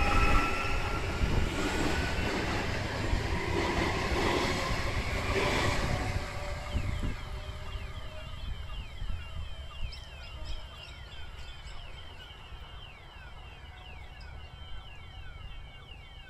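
Adelaide Metro 4000-class electric train passing close by and pulling away, its running noise fading over the first half. In the second half, a rapid series of short, falling whistles carries on while the train recedes.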